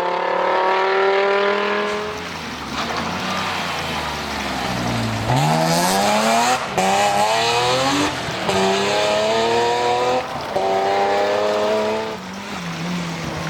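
Historic rally car engine at full throttle. Its revs climb and break several times at the gear changes, drop once in a stretch of tyre and road noise, then climb again and fall away near the end.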